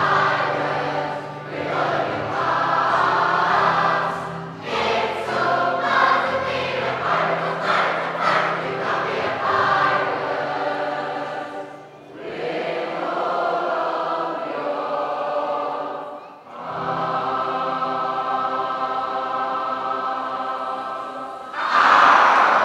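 Large mixed choir singing a sea shanty, with short breaks between phrases, then holding one long final chord. Applause breaks out right at the end.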